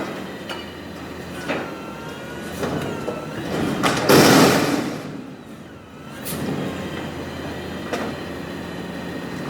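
Garbage truck servicing a dumpster: its engine runs steadily while the hydraulic lift whines, rising and falling in pitch, with scattered metal clanks. About four seconds in comes one loud crash as the dumpster is slammed.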